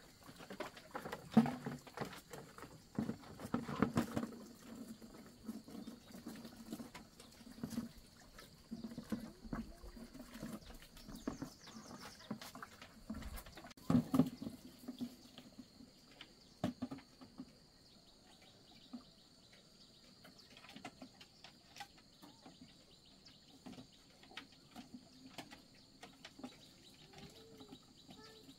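Watery pig bran sloshing and splashing as it is tipped from a plastic bucket into a pig pen, with knocks of the bucket. Then quieter splashes and clinks of water in a bucket and metal basin. A faint steady high tone runs underneath.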